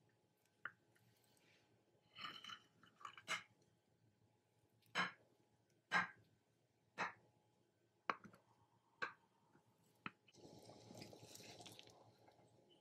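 Knife cutting through a cream-topped sponge cake, giving sharp taps and clicks, about one a second through the middle, as the blade meets the plate beneath. A stretch of noisy hiss lasting about two seconds comes near the end.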